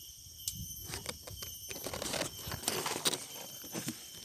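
Irregular rustling and light clicks, like leaves and twigs being handled, over a steady high-pitched insect drone.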